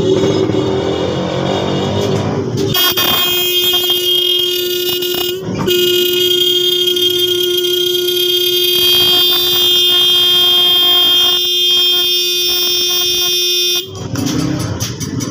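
Denso electric disc car horn bench-tested on its wires while its adjustment is set. It sounds rough and uneven for the first few seconds, then gives a loud, steady single-note honk for about ten seconds, with a brief break after about five and a half seconds, and cuts off near the end.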